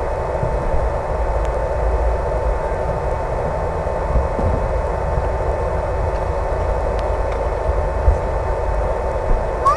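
HobbyZone Super Cub RC plane's electric motor and propeller running steadily in flight, a constant whine over hiss, with a heavy wind rumble on the microphone.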